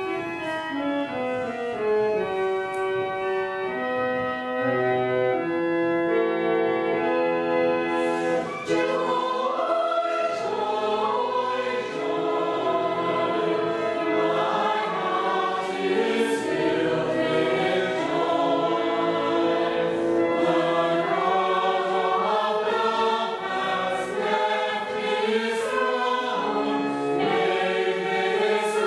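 Church organ playing a carol's introduction in steady held chords, then a small mixed choir comes in singing the carol about eight seconds in, with the organ accompanying.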